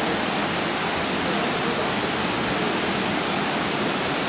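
Steady rushing water noise in an indoor competition swimming pool: an even hiss at a constant level, with no single splash or stroke standing out.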